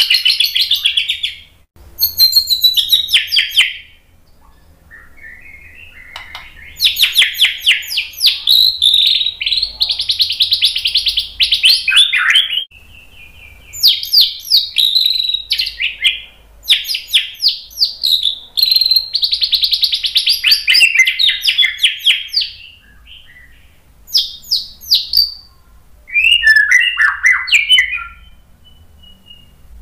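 White-rumped shama (murai batu) singing: loud phrases of fast, rapidly repeated notes, each lasting a second to several seconds, separated by short pauses.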